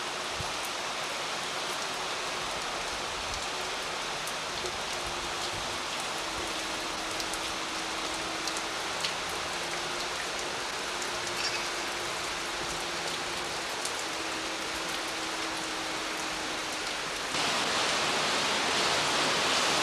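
Heavy rain falling steadily and pattering on the balcony, with scattered drop ticks and a faint steady hum underneath. The rain gets louder near the end.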